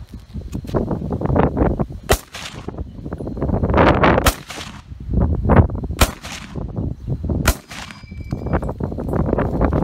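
M1 Garand rifle in .30-06 firing single shots a couple of seconds apart, three sharp reports standing out. After the last shot near the end comes a short high metallic ping: the empty en-bloc clip ejecting once the rifle is emptied.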